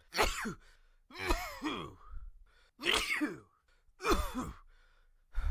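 A man sneezing over and over in an allergic sneezing fit: four sneezes about a second apart, with a fifth starting at the end. Each is a sharp burst with a voiced cry falling in pitch.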